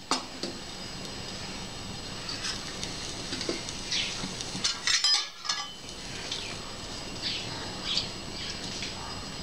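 Egg and bread frying in oil on a hot pan, a steady low sizzle, with a few light clinks of a spoon against a steel bowl, most of them about five seconds in.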